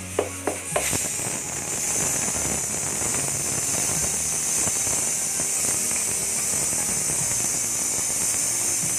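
Hot cooking oil sizzling with a steady, crackling hiss. It sets in about a second in, after a few plucked notes of background music, and cuts off suddenly near the end.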